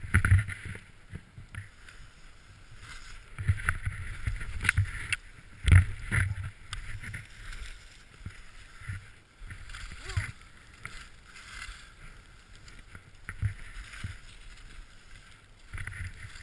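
Skis sliding and turning through deep powder snow: irregular swishing rushes of snow with a few hard thumps, the loudest near the start and about six seconds in.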